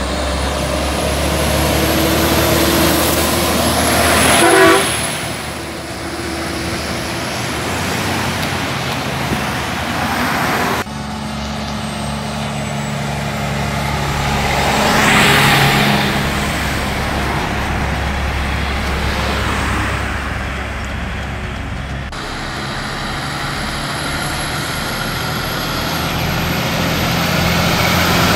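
Kenworth diesel tractor-trailers driving past one after another on a two-lane highway. The engine and tyre noise swells as each truck comes close, loudest about five and fifteen seconds in.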